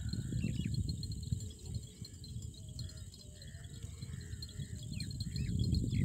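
Crickets or other insects chirring steadily and high-pitched, with a few short bird chirps. Under it runs a low, uneven rumbling noise, the loudest sound here.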